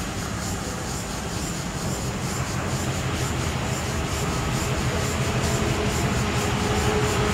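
Diesel-electric freight locomotive approaching. Its engine rumble grows steadily louder.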